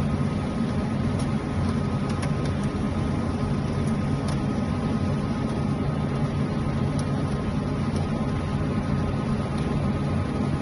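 Steady machine hum with several fixed low tones, and a few faint clicks from handling parts.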